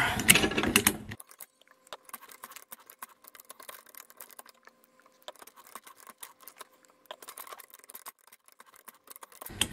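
Ridgid 12-R hand pipe threader ratcheting its die head onto 1-inch black iron pipe, played sped up. It is louder for about the first second, then it is faint, rapid, irregular clicking.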